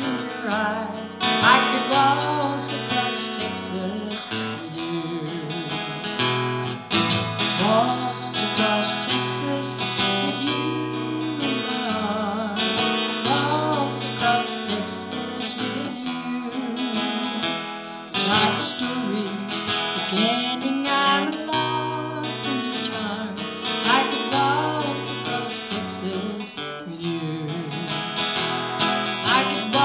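Live country waltz: a woman singing with a strummed jumbo acoustic guitar.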